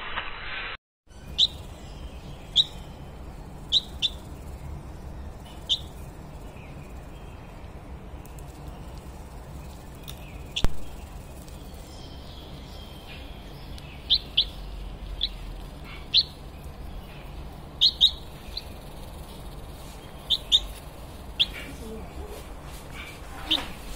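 A small bird chirping: short, sharp, high chirps, one at a time or in quick pairs, at irregular intervals over a steady low hum.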